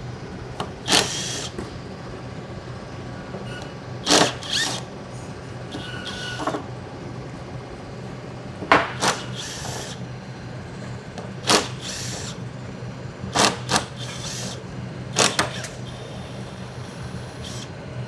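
Scattered metallic clinks and knocks of hand tools and parts as a CP4 high-pressure fuel pump is taken apart on the bench, each one short and sharp and irregularly spaced, over a steady low hum.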